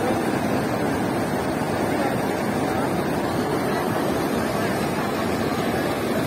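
River water rushing and churning over a low stone ledge, a steady, unbroken wash of white water.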